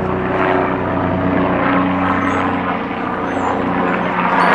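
Helicopter flying overhead, a loud steady drone of rotor and engine with a few held tones that shift slightly in pitch as it moves.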